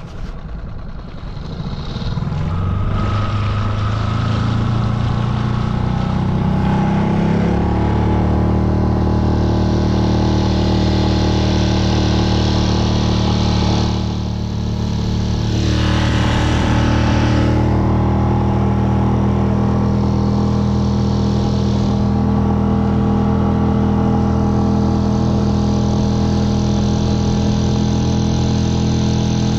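New 6 hp Mercury single-cylinder four-stroke outboard motor, in its break-in period, speeding up over the first several seconds to three-quarter throttle and then running steadily at that speed. About halfway through there is a brief dip in the engine sound and a short rush of noise.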